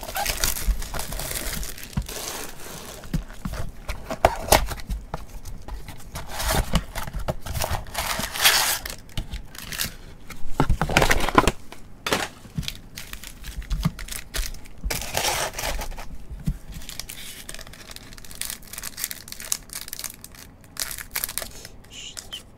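Plastic wrap being torn off a 2023 Bowman Mega Box of trading cards and foil card packs crinkling as they are taken out and handled, in uneven bursts of rustling; scissors begin snipping a pack open near the end.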